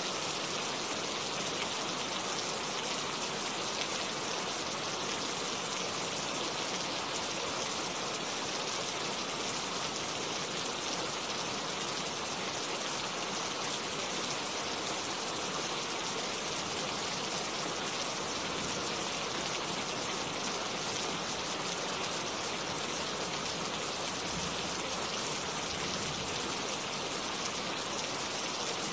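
Steady rain falling and pattering on surfaces, an even hiss of countless drops without thunder and without any change in strength.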